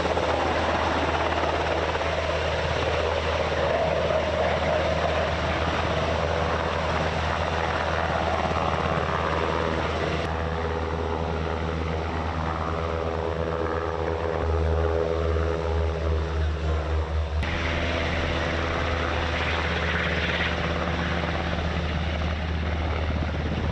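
Helicopter running, a steady low rotor-and-engine drone that changes character abruptly twice, with a louder throbbing stretch in the middle.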